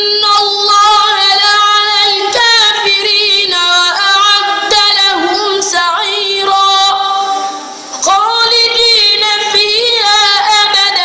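A boy's high voice in melodic Quran recitation (tajwid), drawing out long, ornamented notes that slide between pitches, with one short breath pause about two-thirds of the way through.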